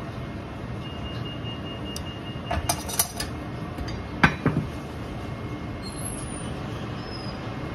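Metal kitchen utensils clinking and knocking against dishes and a stainless steel counter: a few quick clinks about two and a half to three seconds in, then a sharper knock with a dull thud just past four seconds, over a steady background hum.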